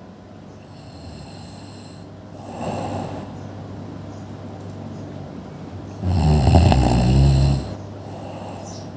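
A person snoring. A shorter snore comes about two and a half seconds in, and the loudest, longest snore runs from about six seconds in for well over a second.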